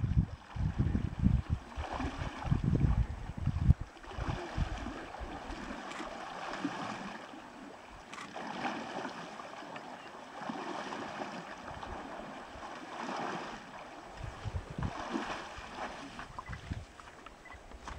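Brown bear wading through a shallow creek, the water swishing around its legs in swells about every two seconds. Near the end it splashes up out of the water onto the bank. Wind buffets the microphone in the first few seconds.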